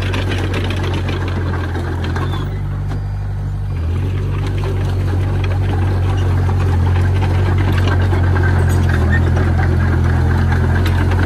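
Komatsu D20P bulldozer's diesel engine running steadily. It eases off briefly about three seconds in, then picks up again and slowly grows louder.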